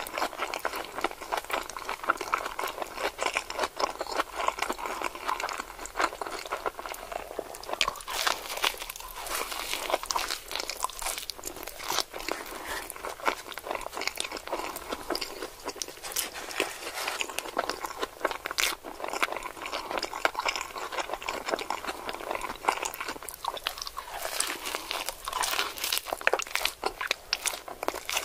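A crunchy taco shell being bitten and chewed: continuous crisp crunching and crackling.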